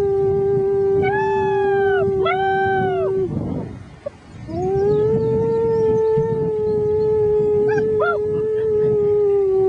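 Six-week-old German Shepherd puppies howling along with a person. A low, steady howl is held for several seconds, breaks off about three seconds in, and is taken up again. The puppies' higher howls rise and fall over it, twice early on and once more near the end.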